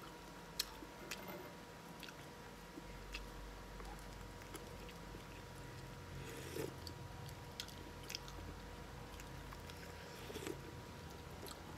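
A man eating: quiet chewing with scattered small clicks, and slurps of coconut-water broth from a spoon about six and ten and a half seconds in. A faint steady hum lies underneath.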